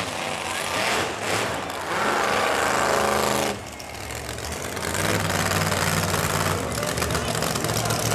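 Monster truck school bus engine running loud and held on a steady note, cutting back suddenly about three and a half seconds in, then running steadily again from about five seconds.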